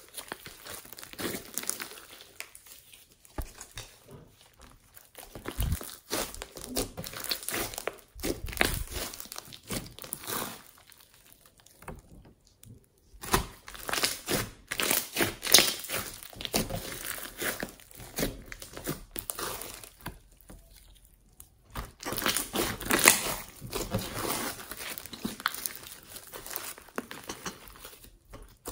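Thick homemade slime with small beads mixed in being stretched, folded and squeezed by hand, giving sticky crackling and popping in spells with short quiet gaps.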